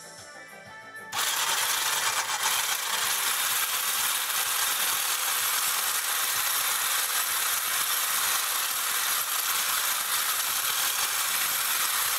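Electric immersion blender with a whisk attachment switched on about a second in at its lowest speed, whisking heavy cream in a stainless steel bowl: a steady whir with the whisk rattling against the metal bowl.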